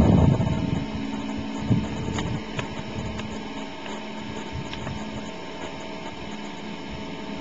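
Steady, distant drone of a de Havilland Beaver topdressing plane's engine, with low wind buffeting on the microphone dying away in the first second.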